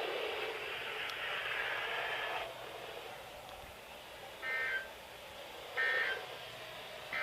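Weather radio receiver giving a hiss for about two and a half seconds, then three short electronic beeps about a second and a half apart.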